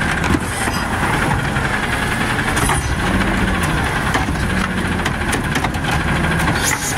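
Garbage truck engine revving to drive the hydraulic cart tipper as it lifts a wheeled trash cart and tips it over the hopper, with a few metal clanks.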